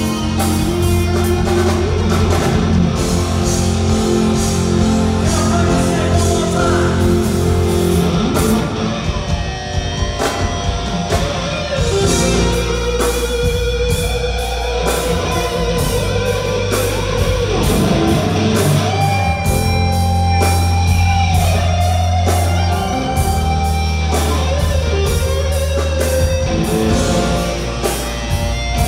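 Live rock band playing, led by electric guitar holding long sustained notes over a steady bass and drums, heard through the hall's sound system.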